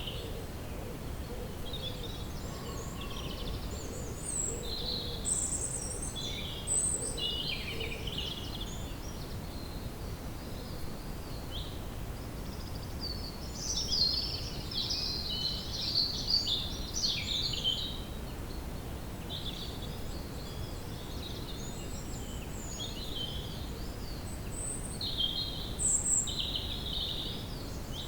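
Woodland ambience: several birds singing and calling in short phrases over a steady low background rush, the birdsong busiest in the middle and again near the end.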